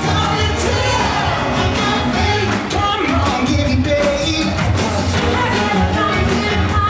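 Upbeat pop music with a steady beat and a singing voice, played loud over a theatre sound system for a live stage dance number.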